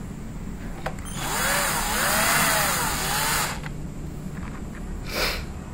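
Cordless drill-driver running for about two seconds, its motor whine rising and falling as the trigger is worked, driving screws back into the housing of a miter saw being reassembled; a second short burst comes near the end.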